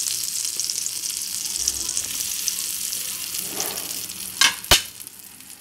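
Melted butter sizzling in a non-stick frying pan under bread sandwiches being toasted. There are two sharp knocks about four and a half seconds in, after which the sizzle is quieter.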